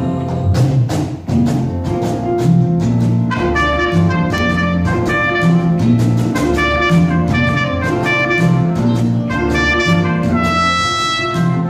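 Live Latin jazz band: a trumpet plays a melody over a repeating electric bass line and hand percussion on congas and cajon. The trumpet comes in about three seconds in.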